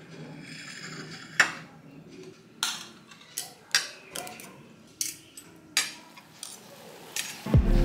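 Metal cutlery clinking and scraping against a dinner plate while eating, in a series of sharp, irregular clinks.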